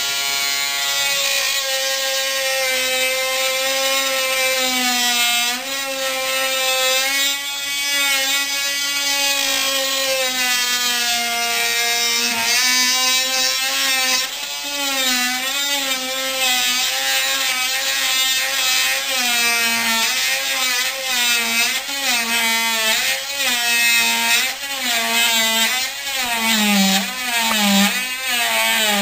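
Oscillating multi-tool with a plunge blade cutting a vertical line through a painted wood baseboard, running continuously with a loud buzz. Its pitch wavers and dips again and again as the blade bites into the wood under hand pressure.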